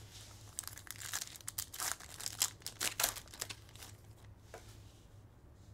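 Plastic wrapper of a Topps Chrome Sapphire trading-card pack crinkling and tearing as it is ripped open by hand: a quick flurry of crackles, then a few scattered ones.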